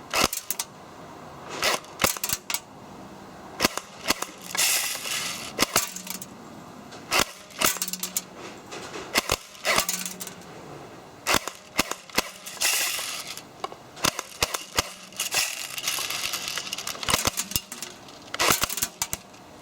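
WELL D93 Uzi electric airsoft pistol firing BBs in short full-auto bursts: runs of sharp snapping shots, with the battery-driven gearbox whirring under each burst and scattered single clicks between bursts.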